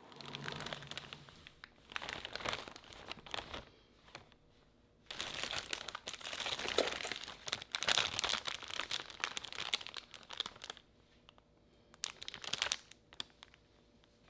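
Thin plastic shopping bag and cellophane packaging crinkling as hands pull goods out of the bag. It comes in bursts, with a longer, louder stretch in the middle.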